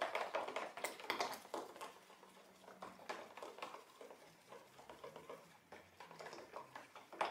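A spoon stirring colourant into soap batter in a plastic jug, with light, irregular clicks and scrapes of the spoon against the jug's sides.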